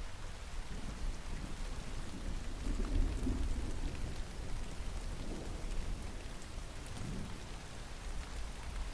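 Steady rain hissing and pattering with distant thunder rumbling low underneath, swelling about three seconds in and again briefly later on.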